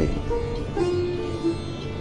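Soft background instrumental music: a few long held notes.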